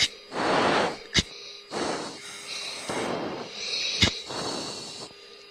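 Heavy breathing into an oxygen-mask microphone over the cockpit intercom: several long rushing breaths in and out. Two sharp clicks come about a second in and about four seconds in, over a faint steady hum.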